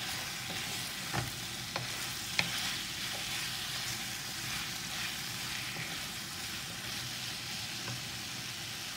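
Diced onion and mixed bell peppers sizzling as they are sautéed in spiced masala in a nonstick pan, stirred with a wooden spatula. Three light knocks of the spatula against the pan come between about one and two and a half seconds in.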